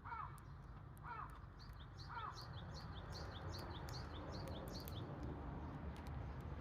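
Wild birds calling: three lower calls about a second apart, then a quick, even run of high chirps from a small bird, over a steady low rumble.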